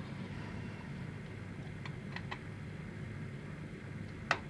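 A few light clicks from a hard plastic display base and a small screwdriver being handled, the sharpest one near the end, over a steady low room hum.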